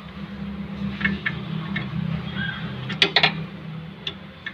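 Sharp metallic clicks and taps of a tool working a seized brake caliper slide pin that will not move, loudest in a quick cluster about three seconds in, over a steady low hum.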